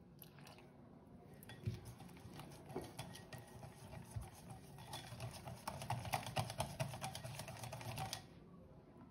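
A utensil clicking rapidly against a mixing bowl while beating a batter. It gets faster and louder about halfway through, then stops abruptly near the end.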